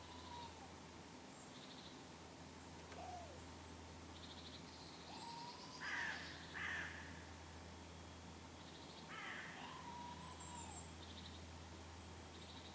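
Red squirrel alarm calling after a goshawk attack: scattered short calls and rapid chatters, with two louder harsh calls about six seconds in.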